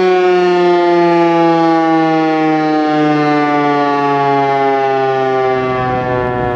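Federal Signal Eclipse 8 DC electromechanical outdoor warning siren sounding one loud, steady tone rich in overtones, its pitch sliding slowly and steadily down as the siren winds down at the end of its short test alert.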